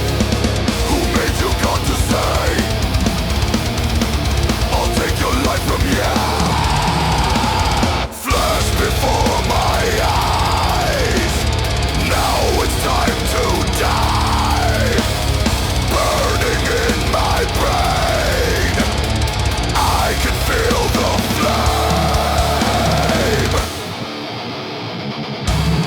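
Loud heavy metal song with heavy bass, drums and many sliding melodic lines. The sound drops out for a split second about eight seconds in, and near the end the bass and drums cut out for about two seconds before the full band comes back.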